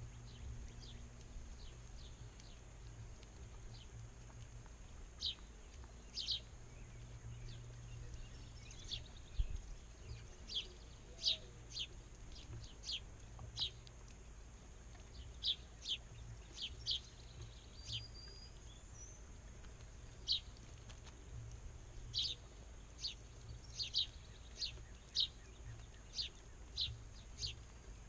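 Small birds chirping: many short, high chips at irregular intervals over a low steady hum.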